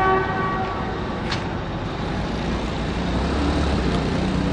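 A single horn blast of about a second, with a steady tone, opens over a continuous background rumble. Near the end a low rumble grows stronger.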